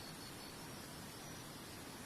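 Steady rush of flowing water, an even hiss with no distinct splashes or breaks.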